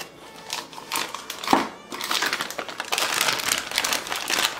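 Plastic piping bag crinkling as it is handled, with a sharp click about a second and a half in.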